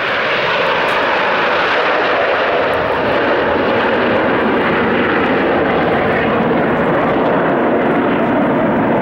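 Formation of Aermacchi MB-339 jet trainers flying overhead, their Rolls-Royce Viper turbojets making a steady, loud rushing jet noise.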